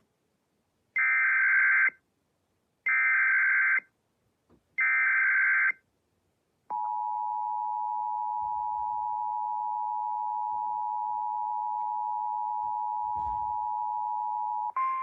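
Emergency Alert System activation for a tornado watch: three bursts of SAME header data tones, each about a second long, followed by the steady two-tone attention signal held for about eight seconds.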